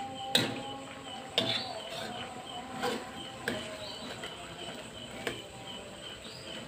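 A metal spatula stirring vegetables in a wok, scraping through the food and knocking sharply against the pan five times, a second or so apart.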